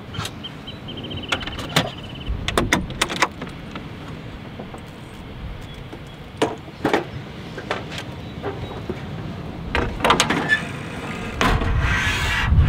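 Scattered clicks, knocks and metallic clatter of a Ford Bronco's rear slide-out camp kitchen being set up: a drawer sliding out and a stainless steel table folding down, with the clatter densest near the end as a cooktop is set on the table.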